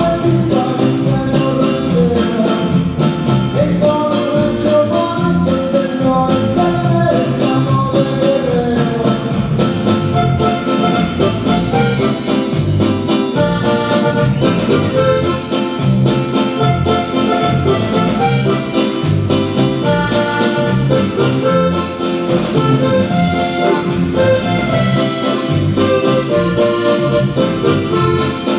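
Live band playing Latin dance music: electric bass, drums and percussion under a steady beat, with a melodic lead line on top.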